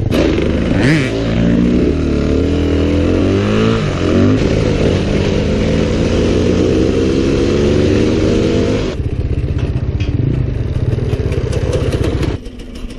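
Off-road trail motorcycle engines revving up and down and running along, heard close from the rider's own bike. The sound changes abruptly about nine seconds in and drops in level near the end.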